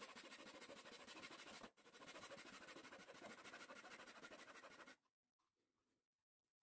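Utility knife blade scraping and cutting into a thin wooden bulkhead of a model ship's frame in quick strokes, with a brief break near the start, stopping about five seconds in.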